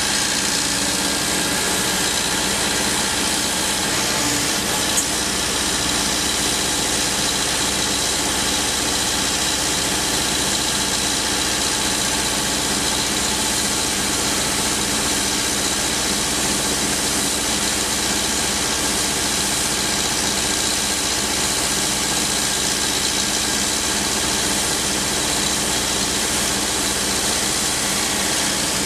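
Diesel engine of a Liebherr R 950 Demolition excavator running steadily, with one short click about five seconds in.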